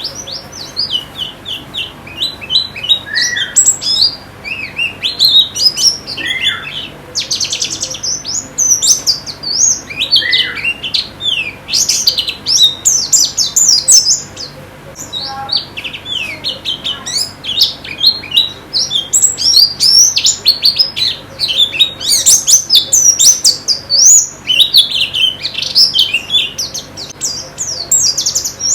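White-eyes (pleci) singing: a dense, continuous run of rapid high chirps and short twittering phrases, with a few lower down-slurred notes mixed in.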